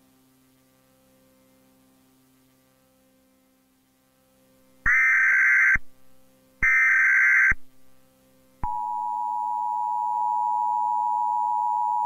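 Emergency Alert System tones: after a few seconds of faint low hum, two loud digital data bursts of about a second each (the SAME header), then the steady two-tone EAS attention signal starting about eight and a half seconds in.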